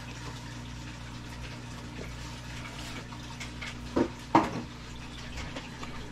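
Two short plastic clacks about four seconds in, as a stack of hard plastic PSA graded-card slabs is handled, over a steady low hum.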